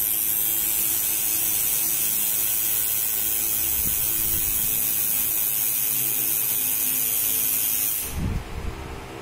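Tattoo machine buzzing steadily with a hiss on top. It cuts out about eight seconds in, with a few low bumps.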